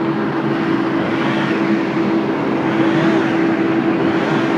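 Strong hurricane wind blowing steadily, with slow gusts swelling and easing, over a steady low hum.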